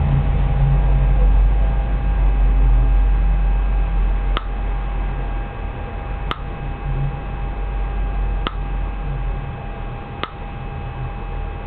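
Four sharp snaps, roughly two seconds apart, of high-voltage arcs jumping the tiny gap between two anodes inside a tube. Under them runs the steady electrical hum and tone of the high-voltage pulse apparatus.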